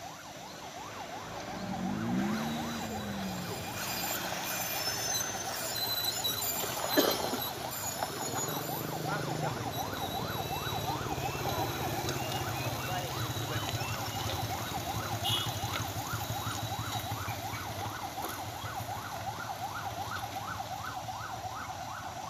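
Vehicle siren yelping, a rising wail repeated about three times a second, over a vehicle engine running. A sharp knock comes about seven seconds in.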